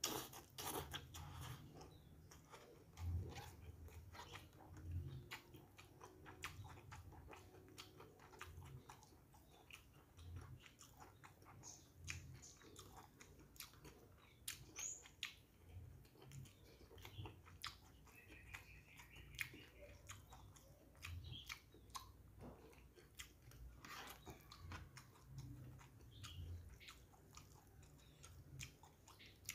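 A person chewing a mouthful of instant noodles and rice at close range, with many small, irregular wet mouth smacks and clicks. Quiet, with no talking.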